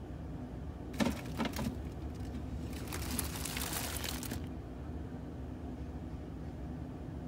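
A few light knocks about a second in, then a plastic bag crinkling for about a second and a half as a hand pushes it aside on a refrigerator shelf, over a low steady hum.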